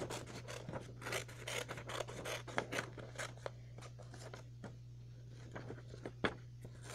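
Scissors cutting a circle out of yellow paper: a run of short, irregular snips, busier in the first half and thinning out later.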